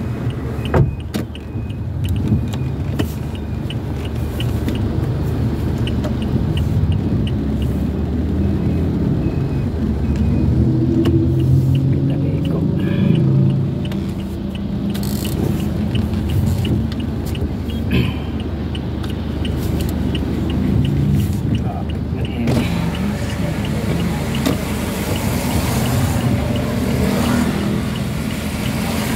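Car cabin noise while driving on a wet road: a steady low engine and road rumble, with a light, evenly spaced ticking through the first half. About three-quarters of the way in, a hiss of tyres on the wet road comes in.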